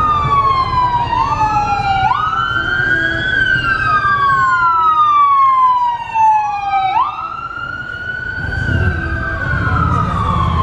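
Emergency vehicle sirens wailing. Each sweep slides slowly down in pitch and then jumps quickly back up, and two sirens overlap out of step. A low traffic rumble is heard under them near the start and near the end.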